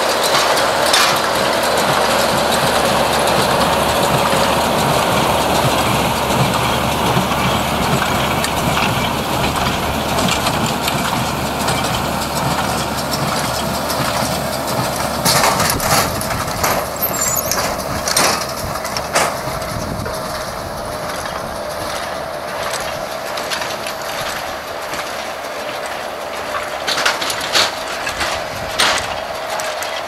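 John Deere 6110 tractor's diesel engine running steadily as it pulls an International Harvester 440 baler and a McConnel bale packer working straw. Sharp clanks and knocks from the machinery come in clusters past the middle and again near the end, and the sound fades somewhat in the second half.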